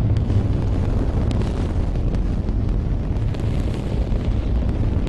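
Saturn V S-IC first stage's five F-1 rocket engines firing on a static test stand: a steady, heavy low rumble with a ragged crackle over it.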